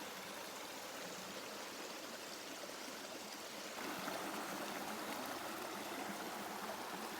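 River water rushing steadily, growing a little louder about four seconds in.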